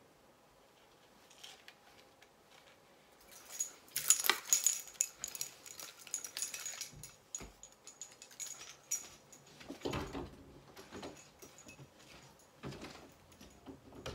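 Quiet at first, then clothing rustling and light metallic jingling from about four seconds in as a person moves close to the microphone, with a soft thump about ten seconds in.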